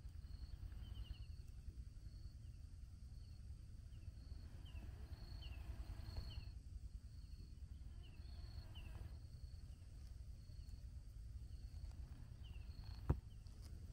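Quiet outdoor ambience: a steady low rumble, with short high falling chirps every second or so from a small animal and a faint high pulsing tone. A single sharp click comes near the end.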